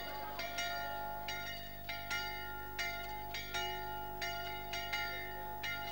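Church bell of a Greek Orthodox church, rung by hand on a rope: quick, uneven strokes, about two to three a second, each ringing on into the next. It is the call to the Sunday liturgy.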